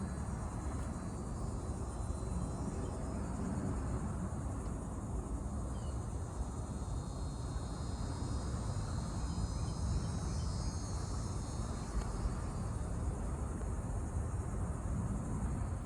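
Steady high-pitched chorus of wetland insects over a constant low rumble.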